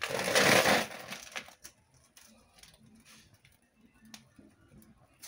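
A loud rustling burst for about the first second and a half, then newspaper burning with faint, scattered crackles and small pops.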